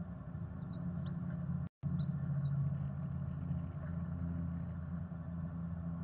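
Steady low rumbling hum picked up by a bird-box camera's microphone, broken by a brief total dropout about two seconds in, with a few faint high ticks.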